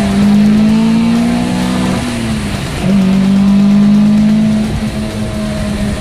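Opel Ascona i400's 2.4-litre 16-valve four-cylinder engine pulling hard, heard from inside the cabin. Its note rises at the start and holds, dips for a moment about two seconds in, then climbs back and holds steady.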